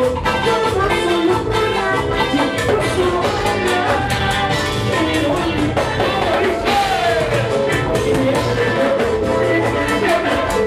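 Live band playing upbeat Latin American dance music, a singing voice over melody instruments and a steady beat.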